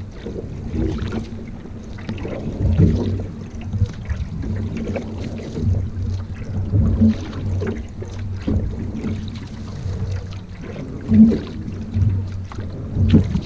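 Single-blade paddle strokes driving a narrow racing canoe: a splash and low thump through the hull with each stroke, roughly one every second or two, over a steady wash of water.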